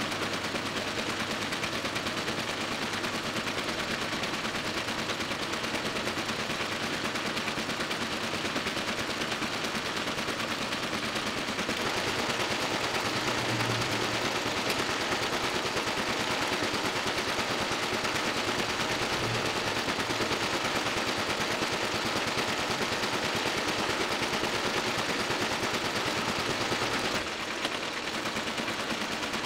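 Toko 810 small offset printing press running, a rapid, steady mechanical clatter as it feeds and prints sheet after sheet.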